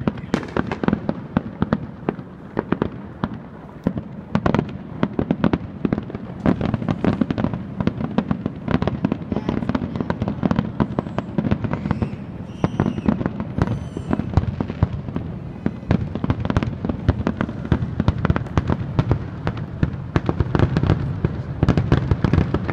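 Aerial fireworks display: a rapid, unbroken barrage of shell bursts and crackling bangs, several reports a second.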